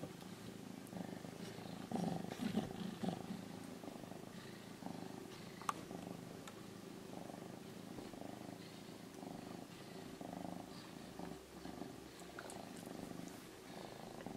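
Domestic cat purring steadily, with a few light clicks and taps and one sharper click about six seconds in.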